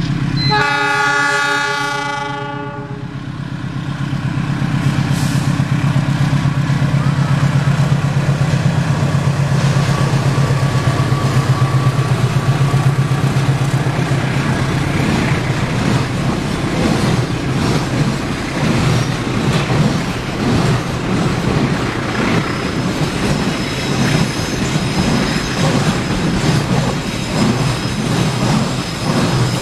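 A horn sounds on one steady chord for about two seconds, then a loud, steady low rumble with a fast, even pulsing that grows rougher and noisier later on.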